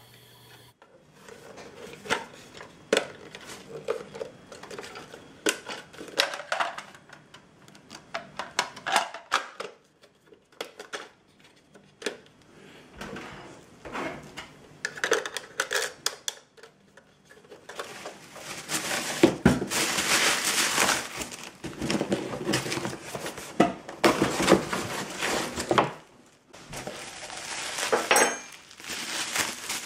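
Hard plastic rain gauge parts being handled, giving scattered light knocks and clacks. About two-thirds of the way in this gives way to bubble wrap crinkling and rustling in repeated bursts.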